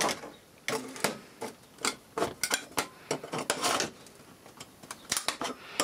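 Screwdriver prying the small metal shield off a smart meter communications module's circuit board: irregular metallic clicks, taps and short scrapes.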